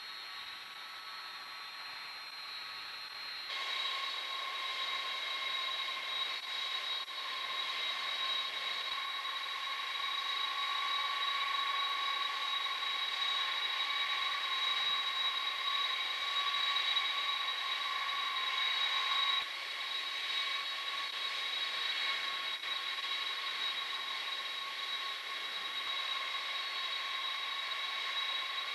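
Turbofan engines of KC-10 Extender tankers taxiing at idle: a steady high whine over a rushing hiss. The sound shifts abruptly about three seconds in and again about two-thirds of the way through.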